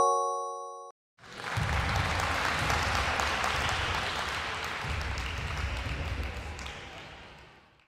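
A chime of several sustained tones rings out for the first second, marking the correct answer. After a brief gap, a burst of applause from a crowd starts and fades away near the end.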